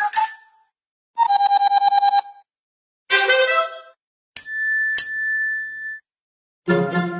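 A run of short mobile phone ringtone snippets, each cut off into silence. First comes a fast string of repeated electronic notes, then a brief stepping melodic phrase, then a bell-like tone struck twice and held for about a second. A fuller musical ringtone with low notes starts near the end.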